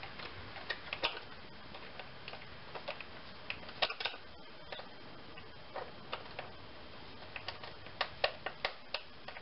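Flat-blade screwdriver tightening a metal hose clamp on the intake duct: scattered sharp metal clicks at irregular intervals, with quick clusters about four seconds in and near the end.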